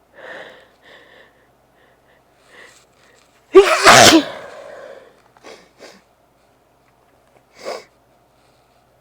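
A person sneezing once, loudly, about three and a half seconds in, with a few short breaths before it and smaller breathy sounds after. It comes in a sneezing fit from a congested nose made sensitive by efforts to clear it.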